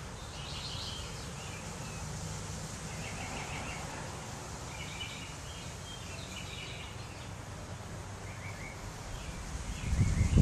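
Songbirds chirping and trilling in short scattered phrases over a steady low background rumble. Just before the end, wind starts buffeting the microphone with a loud low rumble.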